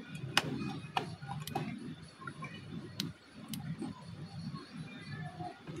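A few sharp, scattered clicks from hands handling a handheld transceiver and the adjustment knob of a homemade antenna analyzer, over faint low background noise.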